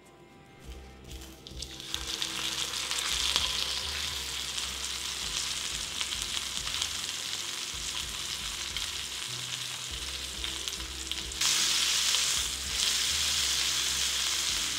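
Beef roast searing in hot oil in a cast-iron skillet: a steady sizzle that begins a second or two in as the meat settles into the pan, and grows louder about three quarters of the way through.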